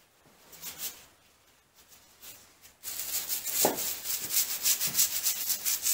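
Small brush scrubbing the grimy cast-iron column of a Kearney & Trecker milling machine in rapid back-and-forth strokes. It starts with a few light strokes, then about three seconds in becomes steady, quick and louder.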